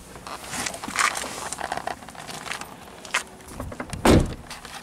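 Footsteps on asphalt with scattered short scuffs and clicks, and one loud dull thump about four seconds in.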